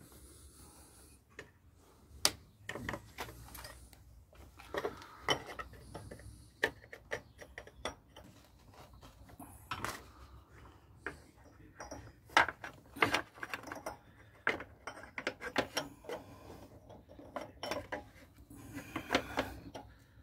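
Scattered, irregular light clicks and clinks of cam sprockets being handled and slid onto the camshaft dowels of a Rover K-series twin-cam engine.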